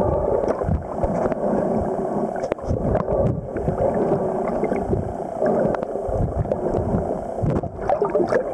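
Water sloshing and gurgling around an underwater camera, with scattered clicks and knocks throughout.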